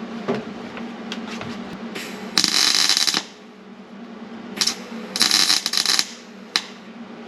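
Welding arc crackling in two short bursts of under a second each, about two and a half and five seconds in, with smaller crackles between: the door hinge pocket panel being welded in place through punched holes. A steady low hum runs underneath.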